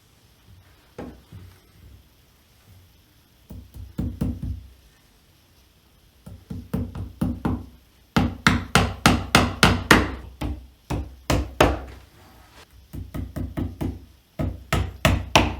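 Hammer driving tacks into a reclining chair's wooden frame to hold the cloth backing: runs of quick sharp strikes, about three or four a second, with short pauses between tacks and a few lighter taps near the start.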